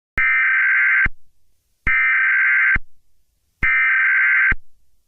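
Emergency Alert System SAME header: three bursts of two-tone digital data, each just under a second long, with short pauses between. This is the encoded header that opens an EAS alert broadcast.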